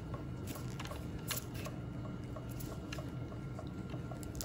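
Wire soap cutter being drawn down through a loaf of cold process soap: faint, scattered clicks and ticks from the wire and cutter arm.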